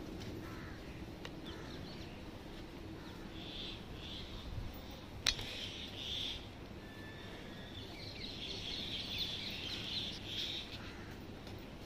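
Small birds chirping and twittering in several short spells over a steady outdoor background, with one sharp click about five seconds in.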